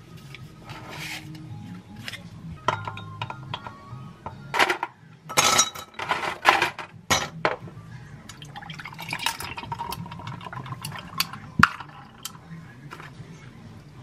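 Ice cubes clattering into a glass mug in a quick run of loud clinks, followed by milk poured over the ice and one sharp glass clink near the end.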